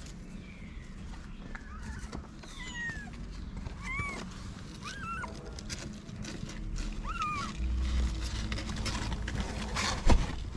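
Newborn kittens mewing: about half a dozen short, thin, high mews. Scattered clicks and a sharp knock near the end.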